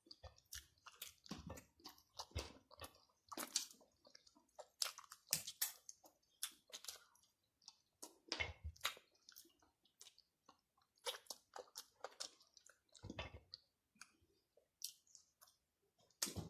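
A person eating fried chicken close to the microphone: quiet, irregular wet chewing with smacking and clicking mouth sounds, several a second, and a few deeper bites along the way.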